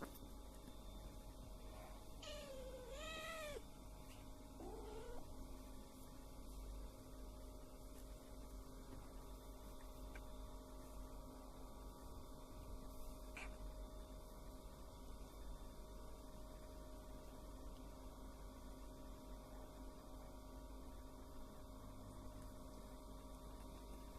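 A domestic cat meows twice: a longer, rising-then-falling meow about two seconds in and a shorter one just after, over a low steady hum.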